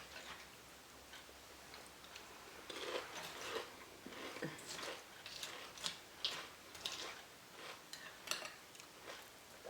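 Eating a bowl of Chex Peanut Butter cereal: irregular soft clicks of a spoon against the bowl and crunching of the cereal, at uneven intervals.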